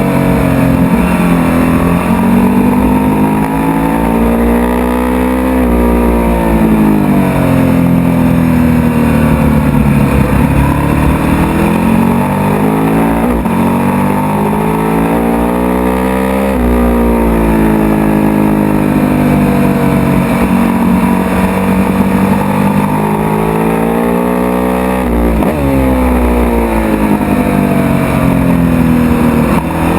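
Sport motorcycle engine heard on board at full throttle, its revs climbing through the gears and dropping back under braking again and again, about five times.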